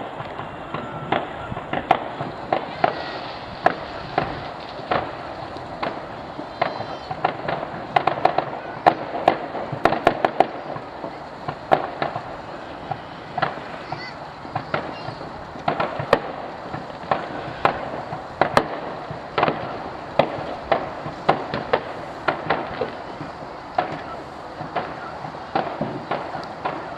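Fireworks going off without a break: a steady stream of irregular, sharp bangs and cracks, several a second, over a continuous background hiss.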